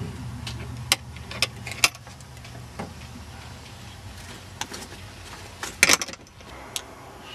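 A scattering of sharp clicks and knocks, the loudest a quick double knock about six seconds in, over a low rumble that fades away in the first two seconds.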